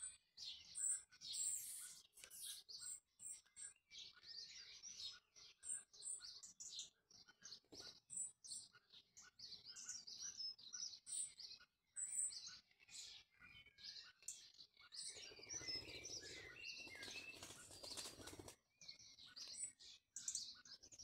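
Small birds chirping and tweeting faintly, short high chirps repeating throughout, often in quick pairs.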